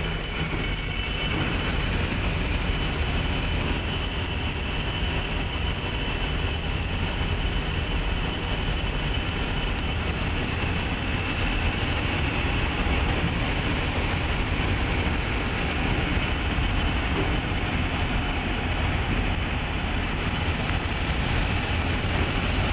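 Heald Model 576 gap bed internal grinder running: a steady, unchanging mechanical noise.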